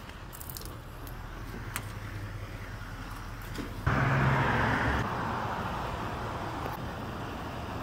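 A motor vehicle's engine running close by with a steady low hum, getting suddenly louder about four seconds in and staying louder afterwards.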